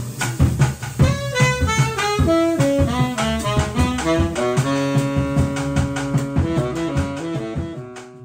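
Jazz saxophone section of two altos, a tenor and a baritone playing a moving line together over upright bass and drum kit. The music fades out near the end.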